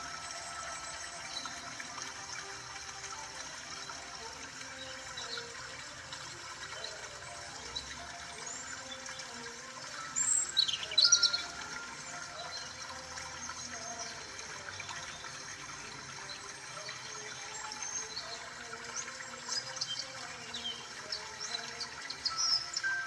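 Birds chirping over a steady rushing hiss and soft background music, with a louder burst of chirps about ten seconds in.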